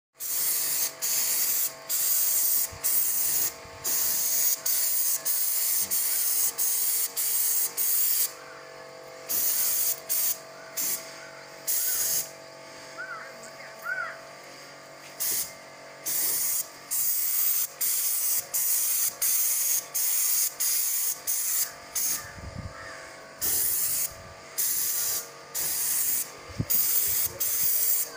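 Paint spray gun hissing in short on-off bursts, roughly one a second, as the trigger is pulled and released, with two longer pauses. A steady machine hum runs underneath.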